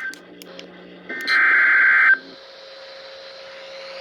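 Emergency Alert System (SAME) digital data burst from a radio receiver: a buzzy two-tone data squeal lasting about a second, starting about a second in, over steady radio hiss. The very end of a previous burst is heard at the start. These bursts are the coded header or end-of-message signals between alert messages.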